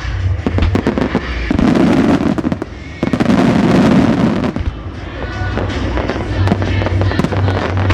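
Aerial fireworks shells bursting, with dense crackling, over music from loudspeakers. Two long loud crackling bursts come about a second and a half and three seconds in, with sharp single bangs around them.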